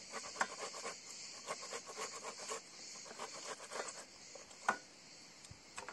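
Tomato halves being scraped across the metal face of a plastic box grater in short, irregular strokes, several a second, with one louder knock about three-quarters of the way through.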